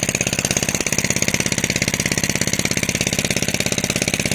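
A small engine running steadily, with a rapid, even beat.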